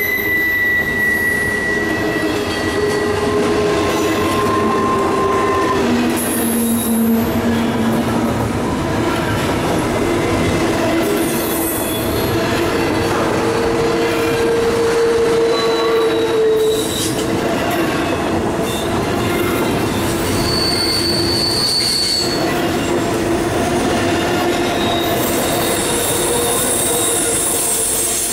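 Double-stack intermodal well cars rolling past on a curve: a steady rumble of steel wheels on rail, with wheel squeals of several different pitches that come and go every few seconds.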